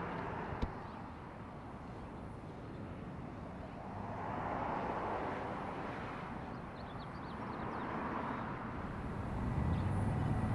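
Outdoor background noise: a low, even rumble that swells twice slowly and rises again near the end, with a single click under a second in and a few faint high chirps in the middle.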